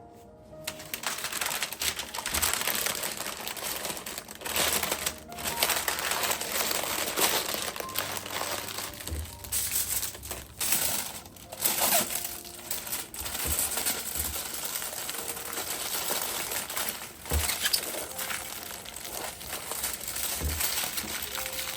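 Crinkling and rustling, as of something being handled, with a few sharp knocks, starting suddenly about a second in, over faint background music.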